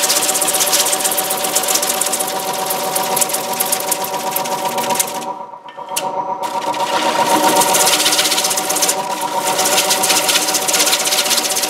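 Wood lathe running with a gouge taking a very light cut across the face of a basswood platter: a steady hum under a dense hiss of shaving. About five and a half seconds in the sound breaks off for about a second, with a single click, and then the cut resumes.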